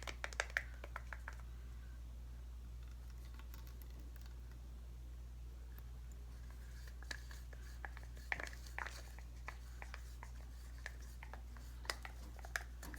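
Scattered light clicks and taps of plastic paint cups and a stir stick being handled while paint is poured, over a steady low hum.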